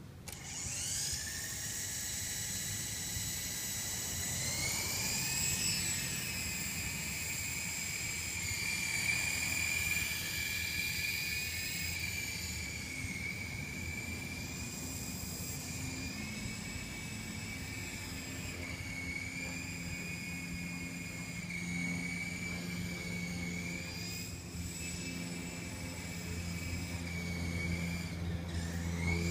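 Syma S033G radio-controlled helicopter's electric motors and rotors spooling up suddenly and running with a high whine, rising in pitch about five seconds in and then holding steady with small wavers as the throttle shifts. A low hum joins near the end.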